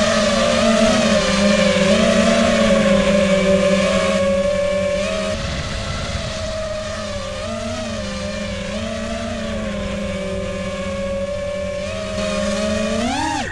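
Motors and propellers of a 5-inch FPV quadcopter (iFlight Titan XL5) in flight: a steady, pitched buzzing whine whose pitch wavers with the throttle, easing a little in loudness partway through and rising sharply in pitch near the end as the throttle is pushed up.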